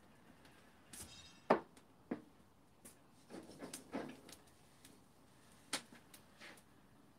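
A few scattered knocks and light clatter from handling things at an open wood-fired grill, the loudest about a second and a half in and a small cluster around the middle, over faint crackling of the burning wood.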